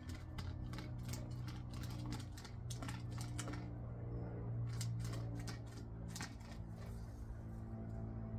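A quick, irregular run of sharp clicks and taps that stops about six and a half seconds in, over a steady low hum.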